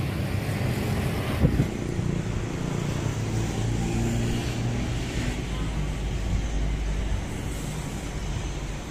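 Road traffic with motorbikes passing: a steady low engine rumble, with a brief loud jump about a second and a half in.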